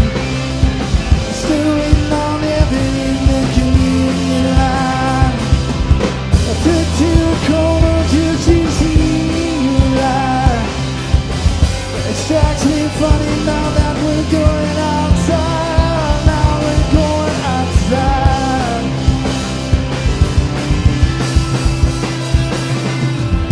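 A live rock band playing, with steady drum-kit hits, a bass line and a pitched melodic lead line over them.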